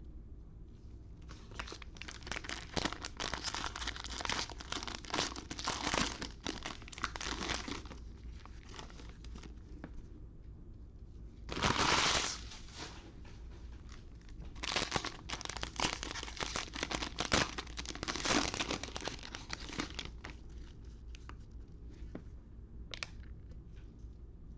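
Plastic trading-card pack wrappers crinkling and tearing as football card packs are ripped open by hand, in two long stretches with one louder rip a little before the middle.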